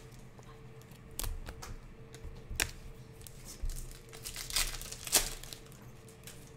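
Hands opening a pack of Panini Prizm basketball cards and flicking through the cards: a crinkly handling noise of packaging and card stock, broken by sharp snaps about a second, two and a half and five seconds in.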